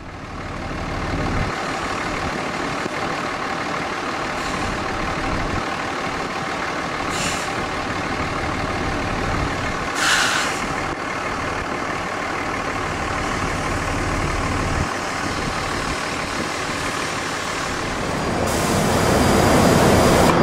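Heavy diesel semi truck running steadily in the bay, with short hisses of air from its air system about seven and ten seconds in. Near the end the noise grows louder and fuller.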